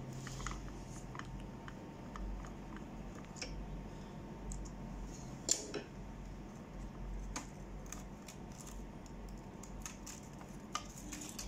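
Scattered small clicks and taps of hands and a screwdriver working the metal and plastic parts of an Epson LQ-310 dot-matrix printer as its print head is unclipped and lifted off the carriage, with a sharper click about five and a half seconds in.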